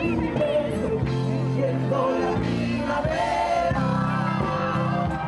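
Live music with a singer, heard from among the audience: a sung melody over sustained low accompaniment.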